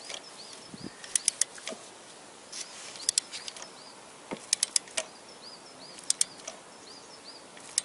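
Ratchet head of a torque wrench clicking in short runs of two to four clicks, every second or two, as it is worked back and forth to tighten a small 10 mm bolt.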